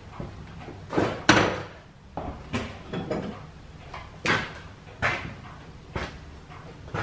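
A string of knocks and clatters, roughly one a second, the loudest a double clatter just after a second in.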